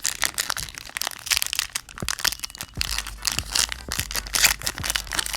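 Foil Pokémon booster pack wrapper being torn open and crinkled, a dense run of crackles and crunches.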